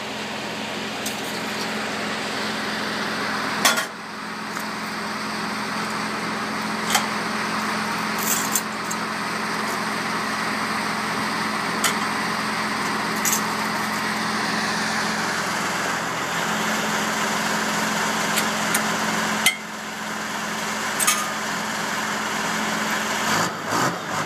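A diesel engine idling steadily, with sharp clanks of log chains and a chain binder every few seconds as the load is chained down.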